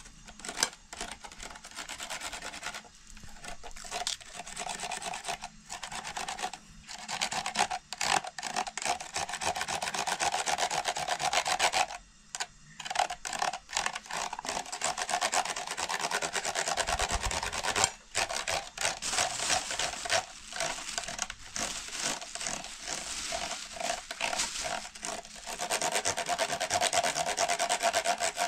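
Rapid, repeated rubbing and scraping strokes made by hand, going on with short pauses now and then.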